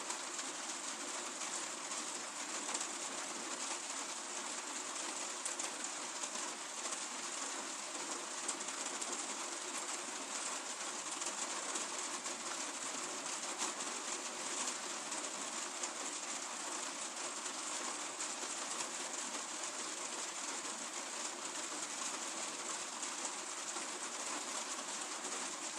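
Steady rain falling, a dense even hiss made of countless fine drop ticks, with no let-up.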